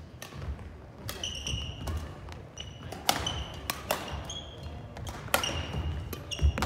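Badminton rally: repeated sharp cracks of rackets striking the shuttlecock, mixed with short high squeaks of court shoes on the wooden gym floor.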